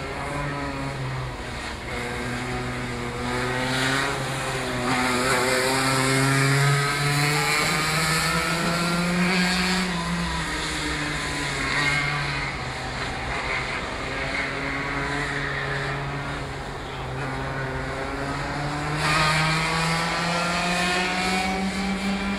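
Rotax 125 cc two-stroke kart engine lapping the circuit, its pitch rising as it accelerates out of the corners and falling off as it brakes, several times over. It grows louder twice as it comes nearer.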